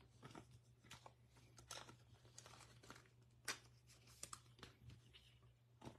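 Faint rustling and soft clicks of trading cards being handled, slid against one another and set down on a table: irregular light ticks, the sharpest about three and a half seconds in, over a low steady hum.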